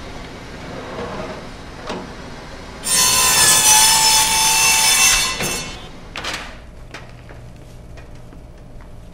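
Butcher's band saw cutting through a slab of beef: a loud, harsh rasp with a whining tone, starting about three seconds in and lasting about two and a half seconds. A shorter scrape follows.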